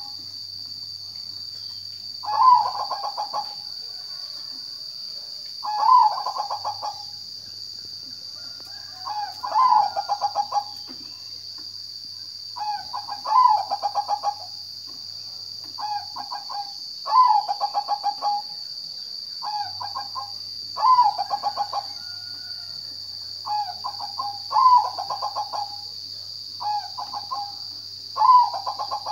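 Zebra dove (perkutut) singing its song over and over, about every three and a half seconds. Each phrase is a loud opening note followed by a quick run of short cooing notes. A steady high-pitched hiss runs behind it.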